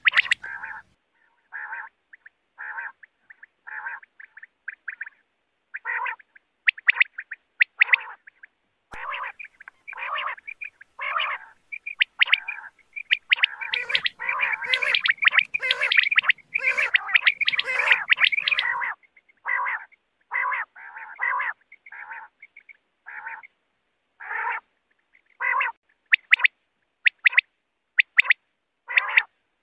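Common quail calling: short notes repeated in quick succession, with a denser run of overlapping calls about halfway through.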